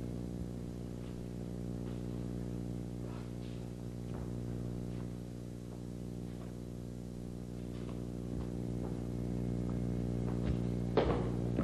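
Steady low electrical hum with many even overtones, the kind of mains buzz carried on old camcorder tape. Faint scattered taps of feet on the wooden stage sound over it, with one sharper thump just before the end.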